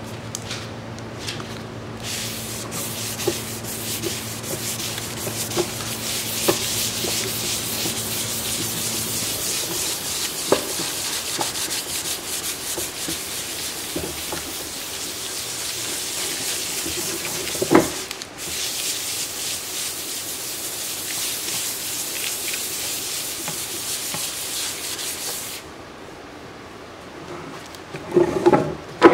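A foam sanding sponge scrubbed by hand over a cured epoxy resin surface, scuffing it ahead of a flood coat: a steady, scratchy rubbing that breaks off for a moment about eighteen seconds in and stops near the end, where a few knocks follow.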